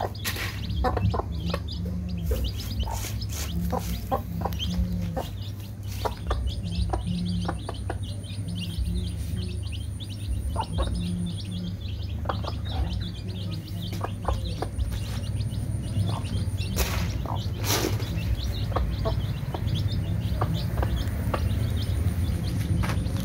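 A brood of young chicks peeping constantly as they peck at feed, with the mother hen clucking now and then, over a steady low hum.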